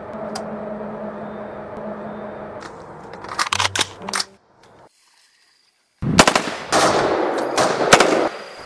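A steady low hum, then automatic rifle fire: a few short bursts about three and a half seconds in, and after a brief silence a long rapid burst from about six seconds in.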